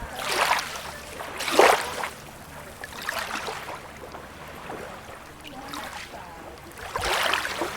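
Small beach waves breaking and washing in irregular splashing surges over steadily running river water, the strongest surge about a second and a half in and another near the end.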